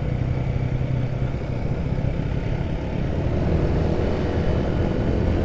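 Motorcycle engine running steadily, its low note dropping a little after about a second.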